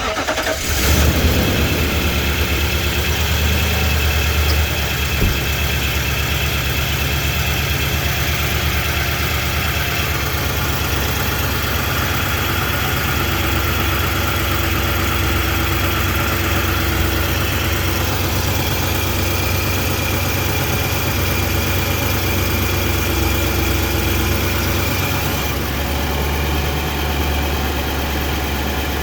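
A 2017 Nissan Titan Pro-4X's V8 engine cranking and catching, surging briefly about a second in, then settling into a steady idle. The owner suspects an engine knock on starting.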